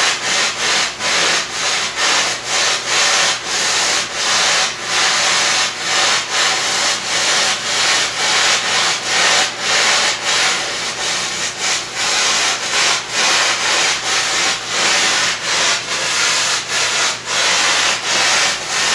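Carbon dioxide hissing steadily from a pipe-freezing kit into the freeze pack around a copper heating pipe, pulsing a couple of times a second. This is the freezing of the line, which is building ice inside the pipe.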